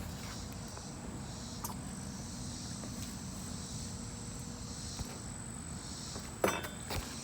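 Insects chirring steadily in a high, even drone over a low rumble. A couple of short knocks sound near the end.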